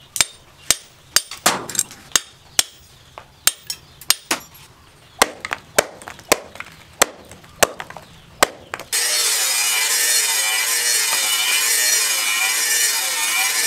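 A forged chainsaw-steel knife blade chopping and striking, about twenty sharp irregular knocks as it cuts through wire and wood on a block. About nine seconds in, a loud, steady whirring mechanical noise cuts in abruptly.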